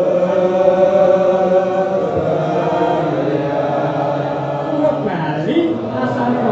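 Sufi devotional chanting by voices in long, held notes, with the melody sliding upward about five seconds in.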